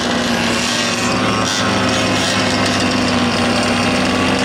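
Several large-scale gas-powered RC buggies and trucks running together, their small two-stroke engines holding a fairly steady pitch.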